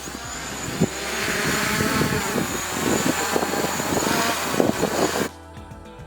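Multirotor drone flying: a steady high motor whine over a rushing propeller noise, with wind buffeting the microphone in low, uneven gusts. It cuts off abruptly about five seconds in, giving way to quiet background music.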